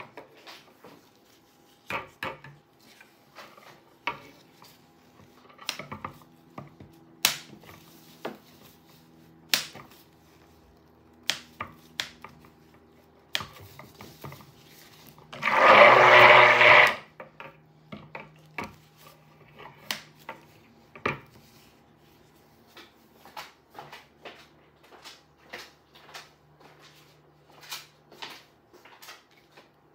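Stick blender mixing soap batter, run in one short burst of about a second and a half midway. Around it come scattered light clicks and knocks of utensils against the glass bowl.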